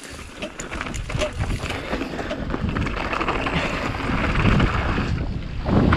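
Mountain bike rolling fast down a dry dirt trail: wind buffeting the bike-mounted camera's microphone over tyre noise and the rattle of the bike over roots and bumps, growing louder toward the end.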